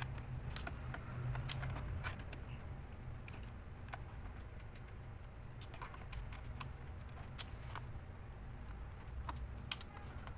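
Irregular light clicks and taps of hands handling a laptop's plastic casing and small parts, with one sharper click near the end, over a steady low hum.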